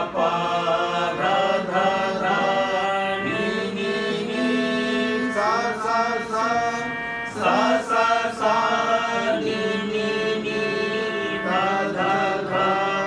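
Men singing a melody in phrases, accompanied by a mini electronic keyboard holding steady notes under the voices.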